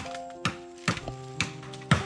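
Background music with held notes, over sharp knocks coming about twice a second.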